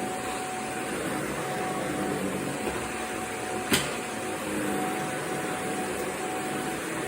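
Vacuum cleaner running steadily, an even rushing noise with a faint steady whine, and one sharp click about halfway through.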